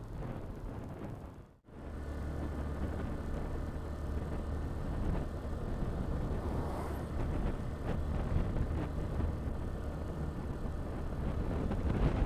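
Hero XPulse 200 motorcycle's single-cylinder engine running steadily while riding, with a steady low hum under a noisy haze. The sound cuts out briefly about a second and a half in.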